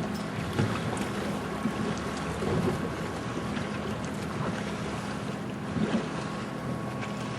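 Boat ambience on the water: a steady low hum with water lapping and wind on the microphone, and scattered small clicks.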